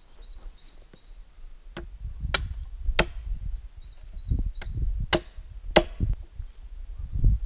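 A hatchet chopping into the top end of an upright log: four sharp blows in two pairs, a few seconds apart.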